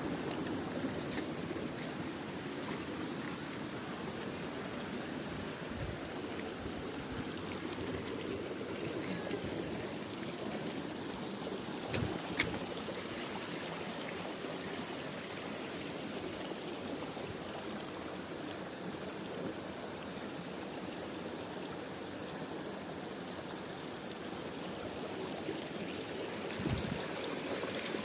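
A forest waterfall and its stream of water running steadily, with two brief knocks close together about twelve seconds in.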